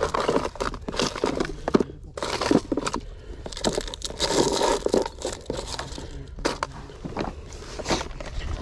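Hands rummaging through a plastic tackle box: a busy run of small knocks, clatters and rustles as the lid and the tackle and packets inside are shifted and picked out.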